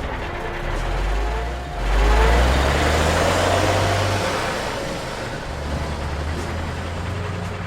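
A vehicle engine running, swelling louder about two seconds in and then easing back to a steady low hum.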